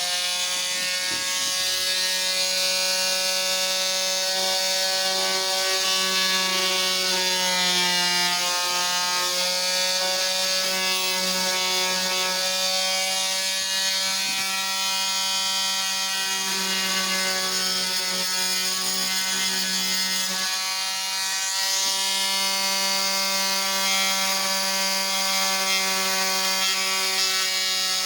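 Electric oscillating multi-tool running steadily on its lowest speed setting, a loud even buzz, used to clean hardened glue buildup out of a wooden corner. Its pitch sags briefly about 8 seconds in and again about 21 seconds in.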